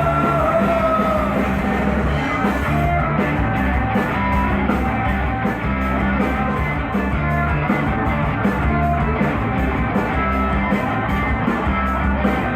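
Live rock band playing an instrumental break: electric guitar, bass and drum kit. A held sung note trails off in the first second or so, then the band plays on without vocals.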